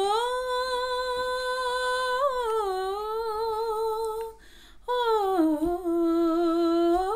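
A woman humming unaccompanied, holding two long notes with a short break between them; the second note slides down and settles lower.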